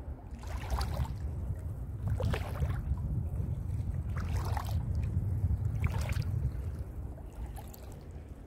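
Wind rumbling on the microphone, with five short splashes of shallow seawater spaced about every one and a half to two seconds, like wading steps.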